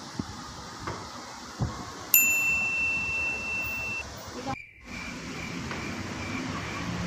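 A single bright electronic ding, starting suddenly about two seconds in, held steady for about two seconds, then cut off. A few faint clicks of small plastic bottles being set down on a table come before it.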